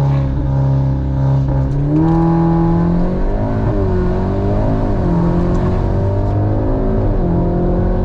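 Turbocharged 2.0 TSI four-cylinder engine of an 8Y Audi S3 and its velocity-stack intake, heard from inside the cabin while accelerating hard at full throttle. The note climbs steadily, and its pitch dips back a couple of times as the gearbox shifts up.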